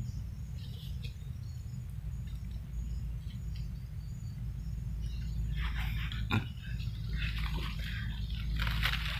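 Footsteps and rustling through wet undergrowth and leaf litter: irregular brushing, crunching strokes begin about halfway through, with one sharper knock a little after, over a steady low rumble.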